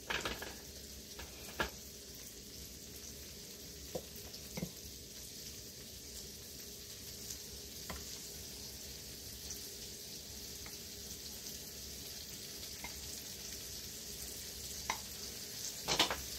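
Beans frying in butter in a pan, a steady sizzle. A few light clicks of a wooden spoon against a glass bowl, with a quick run of them near the end.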